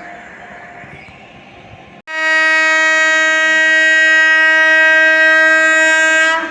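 Rumble of a passing train, then about two seconds in a single long blast of an Indian locomotive's air horn at one steady pitch, held for about four seconds and cut off sharply.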